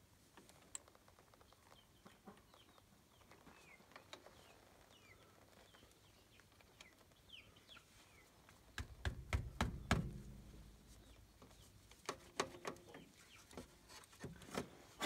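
Gloved hands working at the battery terminal of a Bobcat 316 mini excavator. There is a quick run of knocks and rattles about nine seconds in, and a few scattered clicks near the end, over faint high chirps in the first half.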